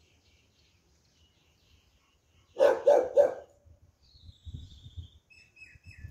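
A dog barks three times in quick succession about two and a half seconds in. Faint high bird chirps and a low rumble follow later.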